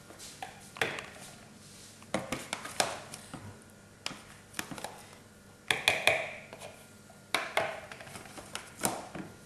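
A spoon knocking and scraping against a plastic tub and a mixing bowl while scooping soft butter: a string of light taps, with short scrapes about six and seven and a half seconds in.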